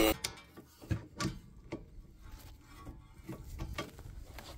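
Faint, irregular clicks and taps of a socket wrench and spanner on a car's rear brake caliper bolt as it is being loosened.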